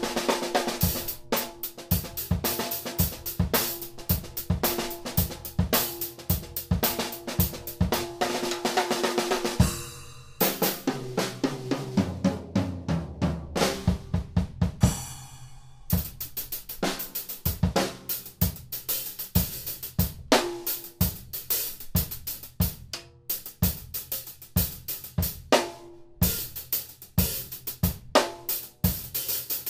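Drum kit played in a steady groove of snare, bass drum, hi-hat and cymbals, featuring a small 6x10 PDP popcorn snare whose top head has not been tuned. From about ten to sixteen seconds in the groove gives way to a fill on low, ringing drums, then it resumes.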